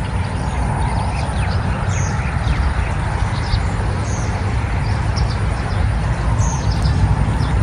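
Steady wind noise on the microphone with a low rumble and hiss, while a bird gives short high chirps every second or two.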